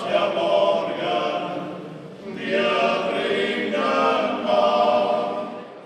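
A men's choir singing, in two phrases with a brief dip between them about two seconds in; the song fades out near the end.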